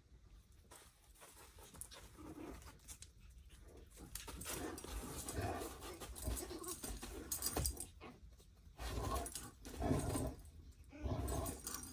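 Dog sounds from a Great Dane and a Chihuahua at rough play, coming in short irregular bursts that grow louder in the second half.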